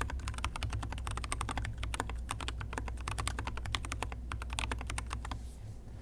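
GK64 mechanical keyboard being typed on quickly: tactile switches with Zealios v2 stems in Glorious Panda housings, PBT XDA-profile keycaps on an aluminium plate in a plastic case, giving a dense run of keystrokes. The typing stops near the end.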